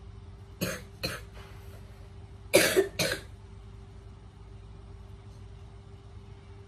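A person coughing: two coughs, then two louder coughs about two seconds later.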